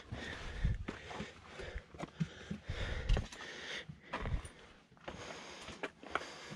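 A hiker breathing hard while climbing, with scattered knocks and scrapes of boots on rock.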